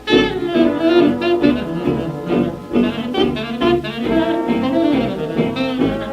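Early-1930s small-band jazz from a 78 rpm record, with saxophones and brass playing an instrumental chorus over the rhythm section.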